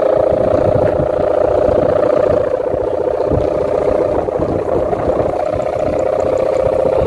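Kite hummer (sendaren) with a 0.25 mm plastic (mika) ribbon stretched on a bow above a large bat-shaped kite, droning steadily in the wind with a buzzing, helicopter-like tone. Wind buffets the microphone underneath.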